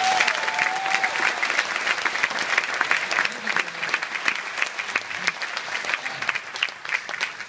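Audience applauding, the clapping thinning a little near the end.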